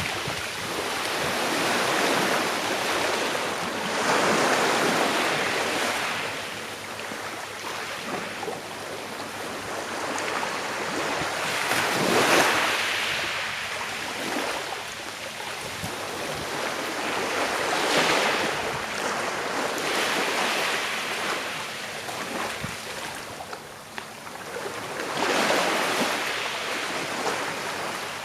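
Sea waves breaking and washing on a shore, in a hiss that swells and fades every few seconds. The strongest surges come about twelve and eighteen seconds in.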